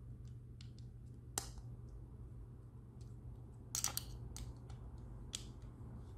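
Scattered light clicks and taps of hands handling a plastic 3D-printed crossbow grip and a metal hex key, with a short cluster of louder clicks about four seconds in, over a low steady hum.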